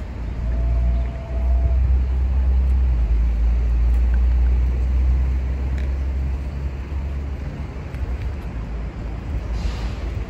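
Low rumble of road traffic on a city street, strongest in the first half and easing off after about five seconds, with a faint brief high tone near the start.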